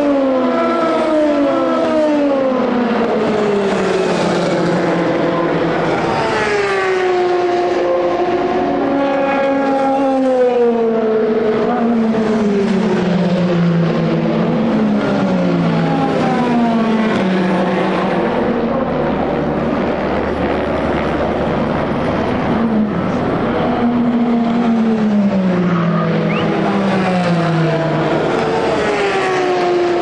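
Endurance racing car engines at race pace, braking and downshifting several times: the engine pitch falls in steps, gear by gear, between stretches of hard acceleration.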